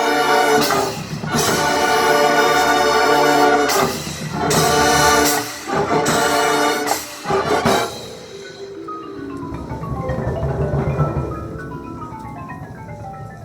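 School band playing: loud held full-band chords with short breaks, ending about eight seconds in, then mallet percussion playing repeated descending runs that fade away.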